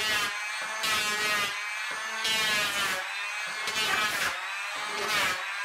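Handheld electric planer cutting along a Douglas fir keel board: a steady motor whine that swells with a louder cutting burst on each pass, about five passes in a row.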